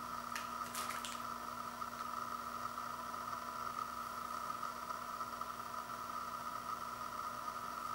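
Steady hiss with a constant electrical hum, and a few faint clicks about half a second to a second in from handling the Blu-ray disc.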